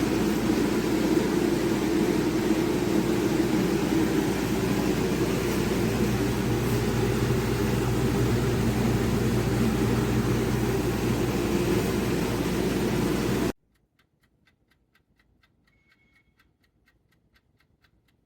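Loud, steady rushing noise with a low hum that cuts off suddenly about thirteen seconds in. It leaves faint, even mechanical ticking, about three ticks a second.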